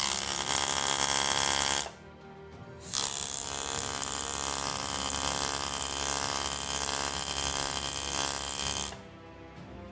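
Jeweler's rotary handpiece spinning a small bur against a silver ring: a steady whir that runs for about two seconds, stops for a second, then runs again for about six seconds before stopping.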